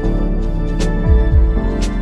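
Background music: sustained chords over a slow beat, with a pair of low kick-drum thuds and a crisp high hit about once a second.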